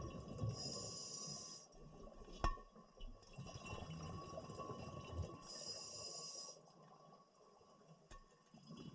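Scuba regulator breathing underwater: two hissing inhalations, about five seconds apart, and the bubbling rumble of exhaled air between them. A sharp click about two and a half seconds in.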